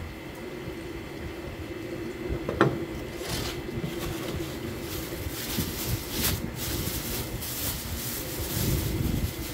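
A knife clacks down once on the plastic cutting board, then a thin clear plastic bag crinkles and rustles on and off as it is handled with gloved hands. A steady hum sounds underneath.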